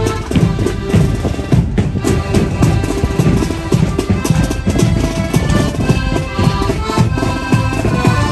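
Marching accordion band playing a tune: accordion chords over a steady drum beat.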